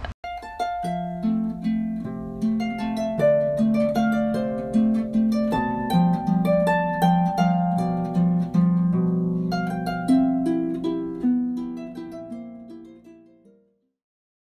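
Background music: a melody of plucked-string, harp-like notes, fading out and ending about 13 seconds in.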